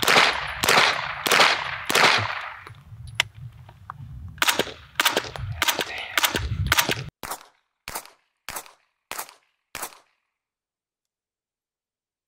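A suppressed B&T APC9 firing 115-grain 9mm single shots through a short Dead Air Wolf suppressor. Each shot has a loud supersonic crack and echo. About four seconds in, an MP5SD on the same ammunition fires a quick string of much quieter shots through its integral suppressor, each a tiny thud. Later comes another string of five short, clipped shots with silence between them.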